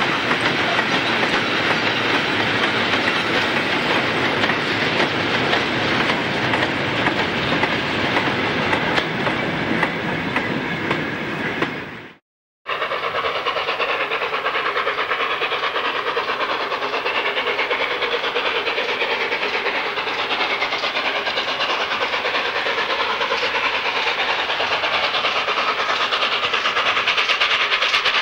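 A freight train of goods vans rolling past close by, its wheels clattering steadily over the rail joints. It cuts off suddenly about twelve seconds in, and a steam locomotive is then heard approaching from a distance, a thinner, steadier sound with less bass.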